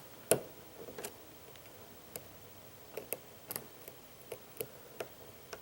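Light metallic clicks and taps at irregular intervals from a lock pick and tension wrench working the pins of a pin-tumbler challenge lock, the loudest click just after the start.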